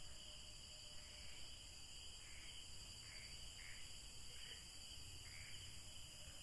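Night insect chorus of crickets: a steady, high-pitched trilling, with a few faint short sounds over it between about two and five seconds in.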